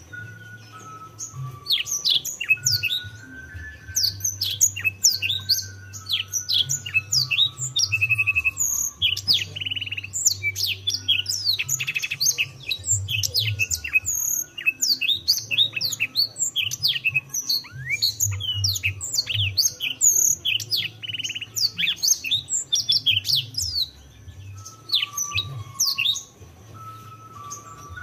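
Canary singing a fast, varied song of high chirps, sharp downward-sweeping notes and short buzzy trills. It starts about two seconds in, drops off near the end and picks up again briefly.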